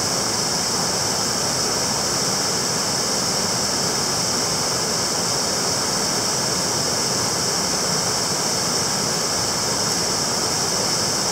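Shallow rocky stream rushing through small whitewater rapids around boulders: a steady, unbroken rush of water.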